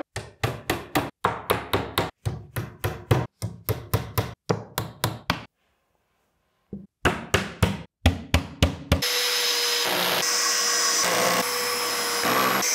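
A steel hammer taps wooden dowels into a particleboard shelf in quick, even blows, about four a second, for some five seconds. A few more knocks follow near the middle. From about nine seconds a cordless drill-driver runs steadily, driving long screws through the side panel, with two brief dips as it works.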